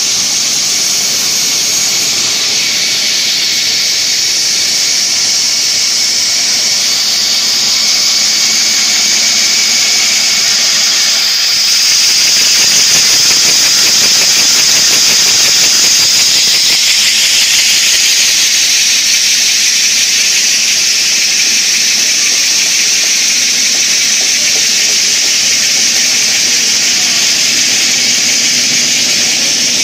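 Steel wire drawing machine running, drawing bright wire: a loud, steady, high-pitched hiss and squeal with no breaks, a little louder for a few seconds around the middle.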